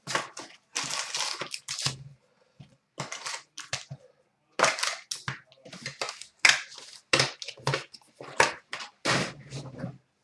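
Trading card pack wrapper being torn open and crinkled in the hands, a run of irregular rustling and crackling bursts.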